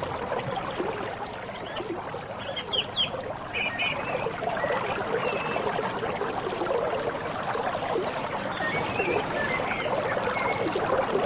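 Water running steadily from a spring pipe and pouring into a cup, with a few short high chirps over it.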